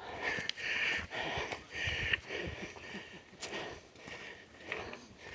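A hiker breathing hard while climbing uphill, a run of quick noisy breaths in the first couple of seconds that then grow fainter.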